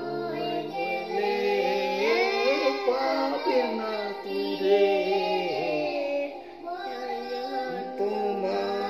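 A man and a young boy singing a Bengali Islamic gojol together without instruments, in long held notes with sliding, ornamented pitch.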